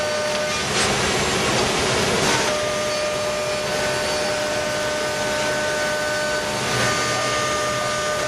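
CNC router spindle running with the bit cutting sheet material: a steady dense hiss of cutting and air under several high, steady whining tones, which drop out for about two seconds near the start and then return.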